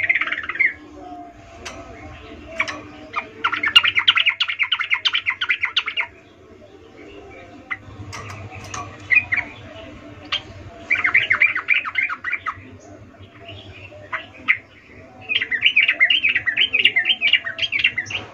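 Yellow-vented bulbul (trucukan) singing: three runs of fast, repeated chattering notes, each lasting about one and a half to three seconds, with scattered single calls between them.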